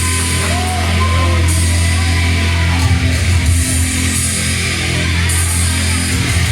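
Loud heavy rock music with electric guitar and drums and a steady heavy bass.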